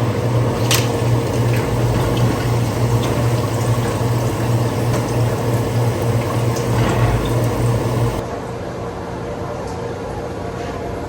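Hot oil in a deep fryer bubbling and sizzling around a batter-coated cordless impact driver, over a steady low hum. About eight seconds in the sound cuts off abruptly, leaving a quieter steady background.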